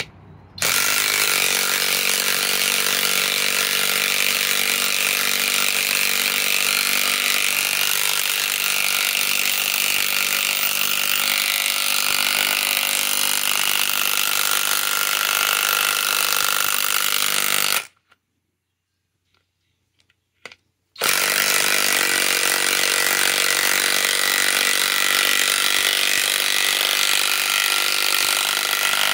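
Flex FX1451 mid-torque cordless impact wrench hammering steadily as it drives a six-inch lag bolt into a log. It runs for about seventeen seconds, stops for about three, then starts hammering again.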